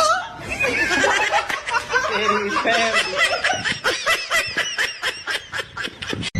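Laughter: a long, fast run of short high-pitched pulses that stops just before the end.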